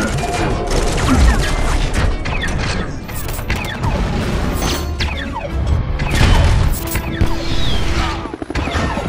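Movie battle sound effects: explosions, metal smashing and crashing, and mechanical robot noises, with several falling whooshes over a low rumble, all layered over a music score.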